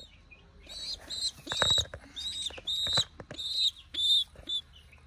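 A young bird peeping over and over in high, short calls, about two a second: food-begging calls. A few sharp clicks come in among the peeps.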